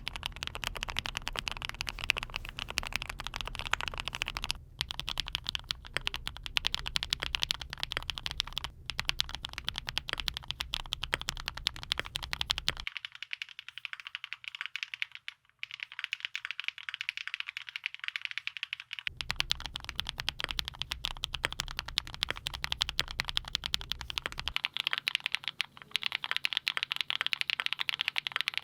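Custom mechanical keyboards being typed on continuously: rapid, dense keystroke clicks of lubed switches. The low background rumble drops away for several seconds in the middle while the clicking continues.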